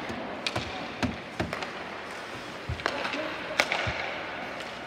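Hockey sticks and puck clacking on the ice, with skates scraping. There are about seven sharp knocks at irregular intervals, echoing in the arena.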